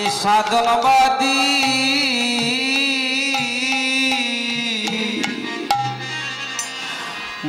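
Bengali devotional kirtan music: a long held melodic line over hand-drum strokes, thinning out about five seconds in.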